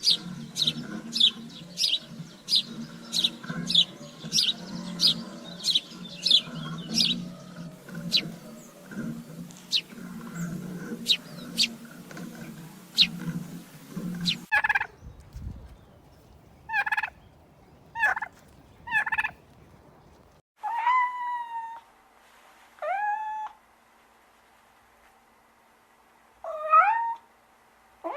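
Animal calls: a long run of rapid, short, high chirps, about one and a half a second, over a low hum. About fifteen seconds in, a few scattered calls follow, then several drawn-out calls that dip and rise in pitch.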